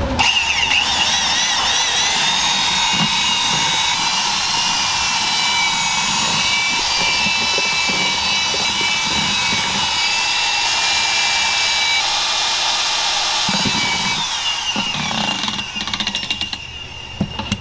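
A motor-driven machine runs steadily with a loud hiss and a high, slightly wavering whine. About fifteen seconds in it winds down, its whine falling in pitch.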